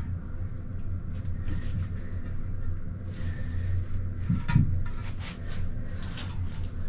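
Scattered knocks and clicks of a porcelain toilet bowl being handled and set down, with one heavier thump about four and a half seconds in, over a steady low hum.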